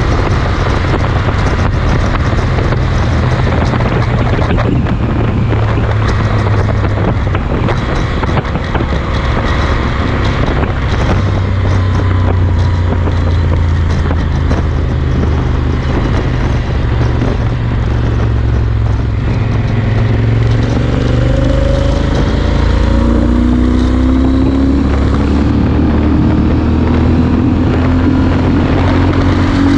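Yamaha Super Ténéré XT1200Z's parallel-twin engine running through a Mivv Speed Edge slip-on exhaust at motorway speed, under heavy wind noise on the microphone. In the last third the engine note climbs in pitch several times as the revs rise.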